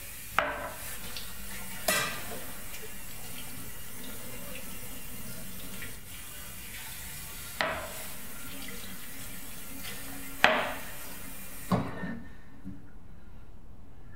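Kitchen tap running into a sink during dishwashing, with five sharp clinks of dishes knocking together. The running water cuts off just after the last clink, near the end.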